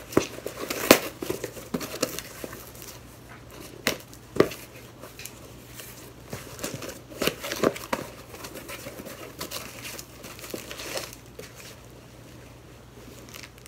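Packaging crinkling and rustling as a mail package is unwrapped by hand, with scattered sharp crackles, the loudest about a second in and around four seconds in.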